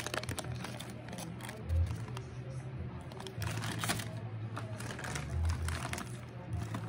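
Crinkly foil snack bags of potato chips rustling as they are handled and set into a plastic bowl, in bursts about two seconds in and again around four seconds in, after a sharp click at the start.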